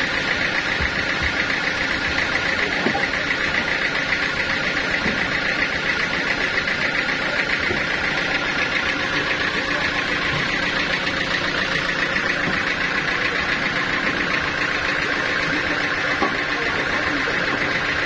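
Band sawmill machinery running steadily, a constant mechanical drone with a steady high-pitched hum.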